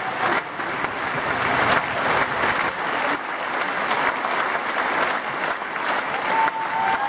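Theatre audience applauding steadily, with a single held shout starting near the end.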